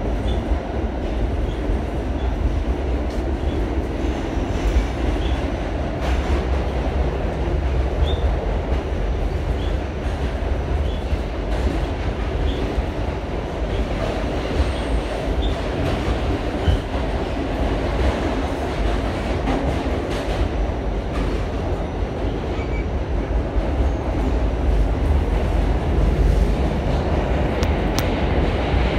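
Inside a New York City subway A-train car running at speed through the tunnel: a steady deep rumble of wheels on rail, with faint short high-pitched wheel squeaks now and then. It grows a little louder near the end as the train passes through a station.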